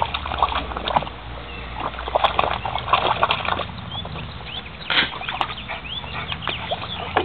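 Wet mud squelching and splashing in quick irregular bursts as a small shaggy dog rolls and wriggles on its back in it. A steady low hum runs underneath.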